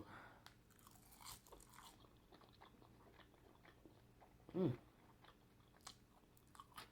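A person chewing a mouthful of sauce-dipped shrimp, with small crunching clicks. About two-thirds of the way in there is a short hummed "mm".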